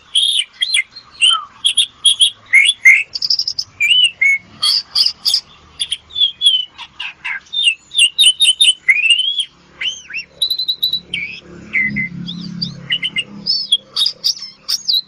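Asian pied starling (jalak suren) singing a rapid, varied song of loud whistles and chirps, many notes sliding up or down. A faint low hum comes in for the second half, and the song cuts off suddenly at the end.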